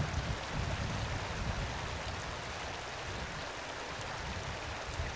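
Steady rushing outdoor noise with no distinct events, over a low rumble that rises and falls.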